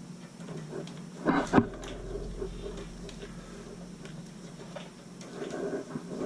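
Light clicks and handling noise from hands and tools working on a water heater's control box, with one louder, brief scrape or rustle about a second and a half in.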